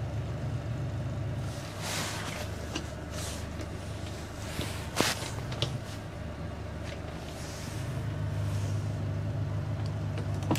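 Motorboat engine running at low revs during slow harbour manoeuvring, a little louder in the last few seconds, with a few faint knocks.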